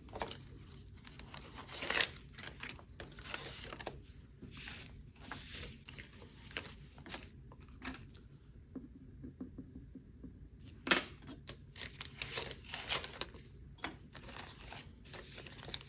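Paper banknotes and a plastic binder envelope rustling and sliding as cash is handled and counted, with two sharper snaps, one about two seconds in and one about eleven seconds in.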